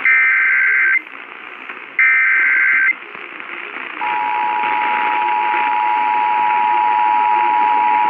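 Emergency Alert System signal received over AM radio with static hiss. It starts with the last two data-header bursts, one-second screeching chirps about a second apart. About four seconds in, the steady two-tone attention signal begins, announcing a tornado warning.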